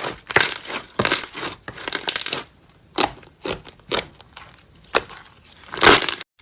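Slime being squished and pressed by hand, making a string of short, irregularly spaced crinkly crackles and pops.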